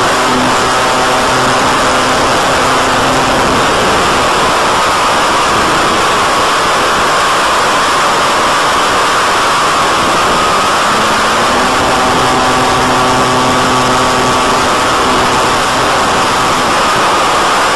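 A BTE Delta Vortex flying wing's motor and propeller heard from on board in flight, under a loud steady rush of air and hiss. The propeller hum fades out about four seconds in and comes back about two-thirds of the way through, as the throttle is eased off and opened again.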